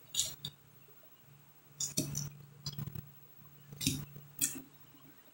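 Close-up eating sounds: a fork against a glass plate and crisp chewing of lettuce salad, in about five short bursts over a faint steady hum.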